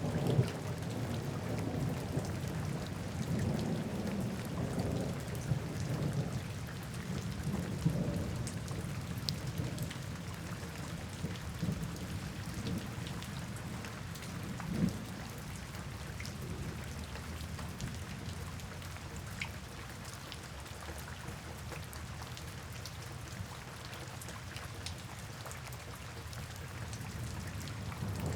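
Steady rain falling, with scattered single drops ticking and a low rumble underneath that is stronger in the first eight seconds or so.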